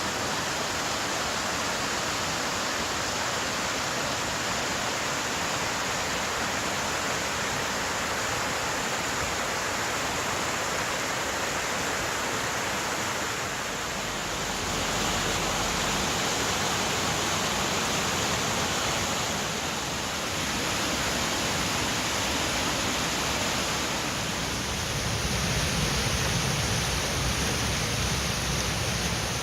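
Steady rush of fast-flowing mountain river water, shifting slightly in tone a few times.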